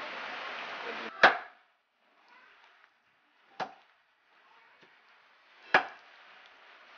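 Three sharp chops of a blade through goat meat onto a thick wooden chopping board, the first and last loudest. A steady hiss stops suddenly about a second in.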